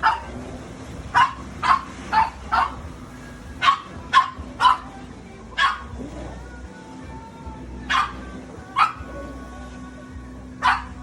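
A dog barking repeatedly: about a dozen short, sharp barks, mostly in quick runs of two to four, over a low steady hum.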